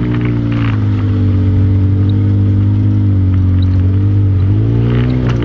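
ATV engine running at a steady cruising speed, its note dipping slightly about a second in and rising again near the end.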